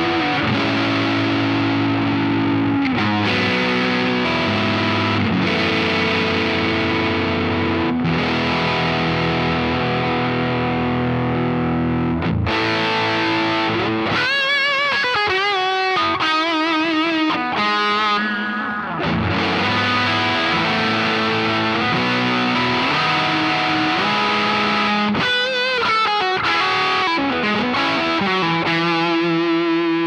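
PRS SE Custom 22 Semi-Hollow electric guitar with 85/15 S humbuckers, played through a Line 6 POD GO with high-gain distortion. First come sustained distorted chords on the neck humbucker. After a switch to the bridge humbucker partway through, single-note lead lines follow, with wide vibrato.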